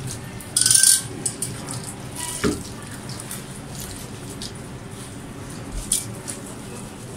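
Diluted shampoo poured from a steel jug splashing onto a wet dog's coat, loudest about half a second in and again briefly near six seconds, with a short clink of the metal jug about two and a half seconds in.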